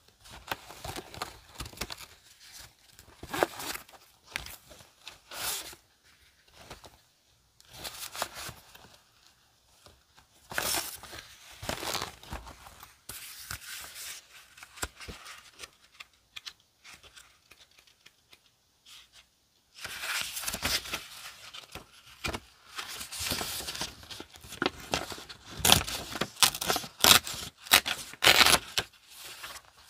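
Paper and a frosted plastic zip pouch rustling and crinkling as sheets of decorative paper are pulled out, flipped through and laid down. The handling comes in irregular bursts, pauses for a few seconds past the middle, then turns busier toward the end.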